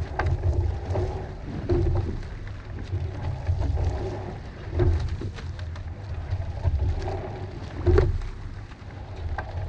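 Coxed four rowing shell under way at a steady stroke: a clunk of oars and oarlocks at each catch about every three seconds, water rushing along the hull, and wind buffeting the microphone.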